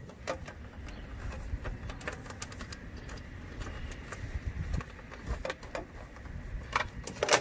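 Scattered light clicks and rustling as a bundle of condenser fan motor wires with metal spade terminals is handled at the access hole in the unit's sheet-metal panel, with a few sharper clicks near the end, over a low steady rumble.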